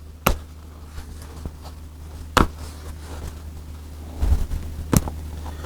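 Staples being pried out of stitched upholstery fabric one at a time: three sharp clicks about two seconds apart, with some rustling handling in between.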